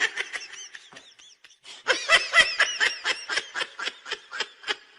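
A person laughing in rapid repeated bursts, loudest about two seconds in and trailing off toward the end.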